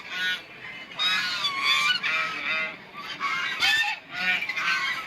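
Geese honking, several calls coming in quick succession and overlapping one another.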